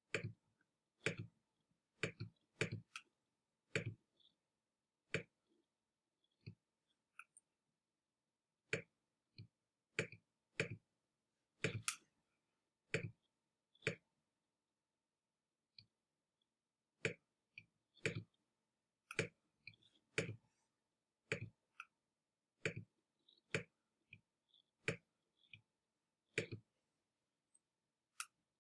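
Computer mouse clicking at irregular intervals, single clicks and quick pairs, with a pause of about three seconds midway.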